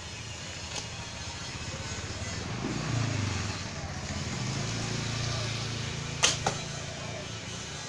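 Short Turkish-style fiberglass recurve bow being shot: a single sharp snap of the string on release about six seconds in, then a second, smaller knock a fraction of a second later. A low engine drone swells underneath through the middle.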